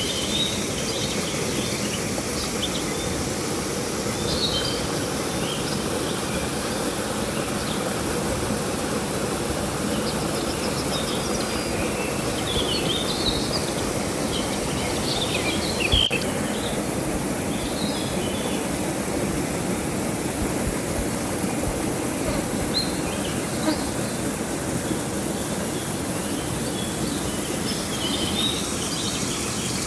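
River water running with a steady rush. Birds chirp now and then over it, and insects keep up a steady high hum. There is one sharp click about sixteen seconds in.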